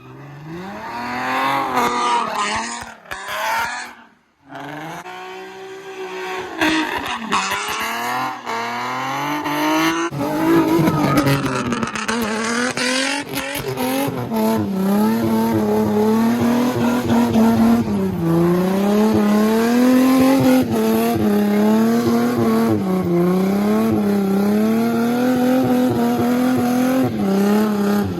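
A car engine revving hard in repeated rises and falls, then held high with the revs wavering up and down as the car is drifted. The sound drops out briefly about four seconds in.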